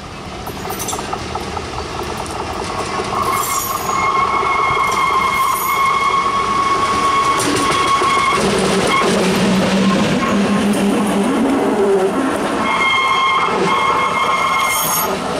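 Hi-rail truck on railway track sounding its horn in long steady blasts as it approaches, then its engine and rail wheels rumbling as it passes close. The horn comes again near the end as it heads away.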